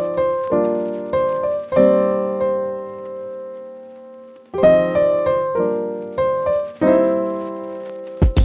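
Background music: slow piano chords, each struck and left to fade, with a lull about three seconds in before the chords resume. A drum beat cuts in right at the end.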